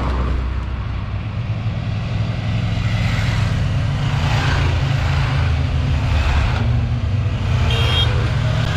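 A group of Triumph Tiger 1200 motorcycles riding past, their engines running steadily.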